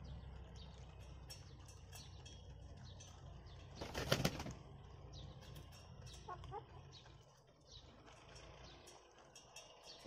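Aseel chickens in a yard, with a brief flurry of wing flapping about four seconds in, the loudest sound here. A short call sounds about six seconds in, and faint high chirps come and go.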